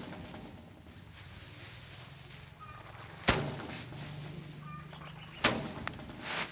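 Two loud, sharp strikes about two seconds apart, the first about three seconds in, with faint short bird chirps between them.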